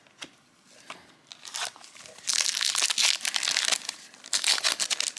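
A foil trading-card pack wrapper being torn open and crinkled by hand, in two spells of crackling starting about two seconds in, after a few light clicks.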